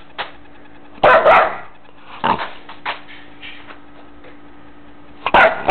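Shepherd Chow mix puppy barking in short, separate barks: a quick pair about a second in, another a little later, and a loud one near the end.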